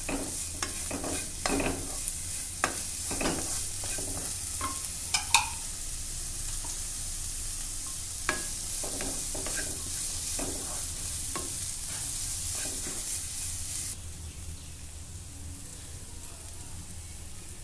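Onions, green chillies and capsicum sizzling in a nonstick kadai while a wooden spatula stirs them, with frequent short scrapes and taps against the pan. The sizzle drops suddenly and quieter near the end.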